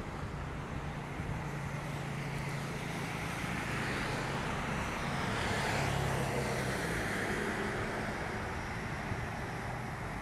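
Steady outdoor vehicle noise with a low hum, swelling as something passes about halfway through, then easing off.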